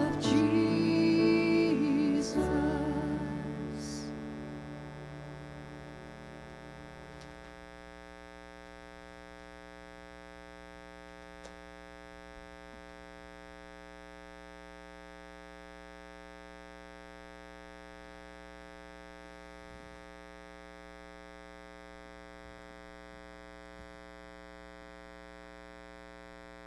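A worship band's song ends: a last sung note and guitar and keyboard chords ring out and fade away over the first several seconds. After that, a steady electrical mains hum from the sound system remains.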